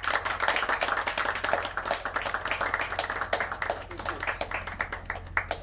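Audience applauding, a dense patter of hand claps that thins out and dies away near the end.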